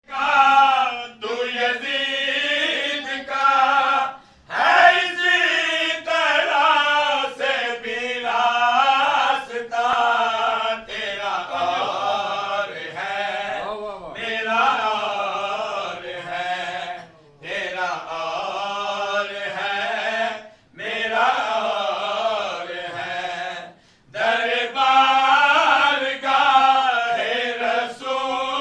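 A man reciting a devotional qaseeda in a melodic chant, long sung phrases broken by short pauses for breath.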